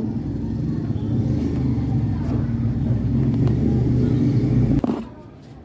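A motor vehicle engine running steadily with a low rumble, cutting off abruptly near the end.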